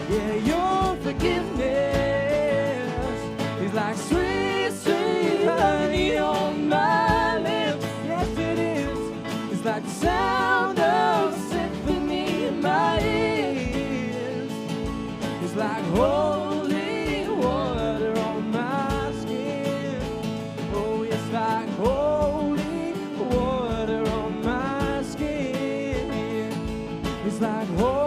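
Contemporary worship band music: guitar and sustained chords under a wavering sung melody whose words are not clear.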